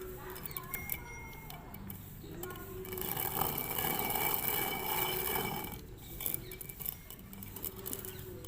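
Hand-turned stone chakki (quern) grinding dry lentils into split dal: a scratchy, rattling grind of stone on grain, louder for about three seconds in the middle.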